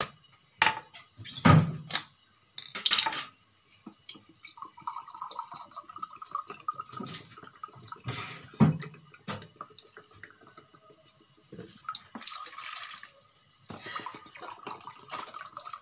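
Vinegar trickling from a plastic bottle into a drinking glass in several pours, with knocks and clunks of the glass and bottle on the counter, the loudest about a second and a half in and again about eight and a half seconds in.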